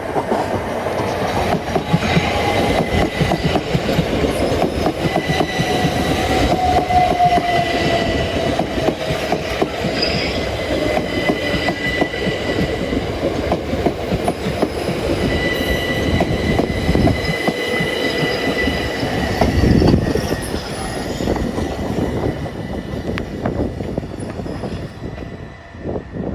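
Southeastern electric multiple unit moving through the station, its wheels clattering over the rail joints under a steady high-pitched whine, with one tone falling in pitch partway through; the noise dies away near the end.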